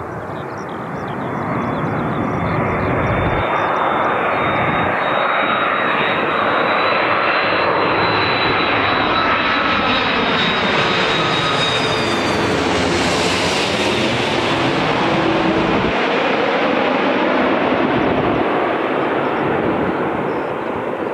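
An Airbus A330-200 airliner passing low overhead on final approach, with its twin jet engines at approach power. The engine noise builds over the first two seconds and stays loud as the plane crosses overhead. A high engine whine slowly rises in pitch and fades as it passes, and the sound eases slightly near the end as the aircraft moves away.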